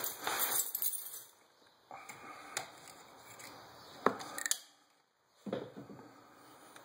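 Handling noise from a copper pipe and a flashlight being moved about right at the microphone: rustling with a few sharp clicks and knocks, the loudest about four seconds in, and the sound dropping out briefly about a second later.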